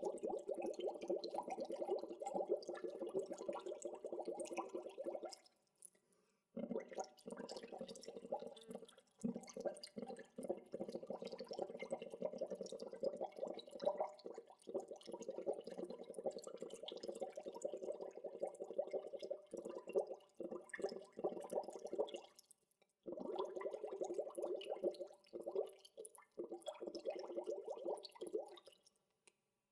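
Gentle natural bubbling water: a dense, continuous run of small bubble pops. It breaks off briefly about six seconds in, again past the twenty-second mark, and near the end.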